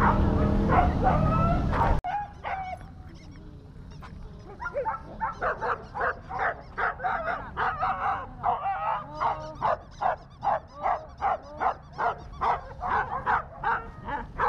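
A dog barking over and over at an even pace, about two barks a second, through most of the stretch. Before it comes a louder jumble of sound that cuts off abruptly about two seconds in.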